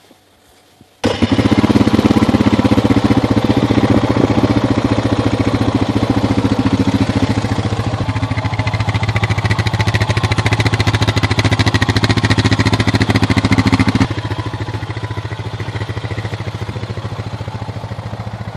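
2012 Honda Rancher 420 ATV's single-cylinder four-stroke engine starting about a second in and then idling steadily with a fast, even exhaust beat. It gets quieter about fourteen seconds in.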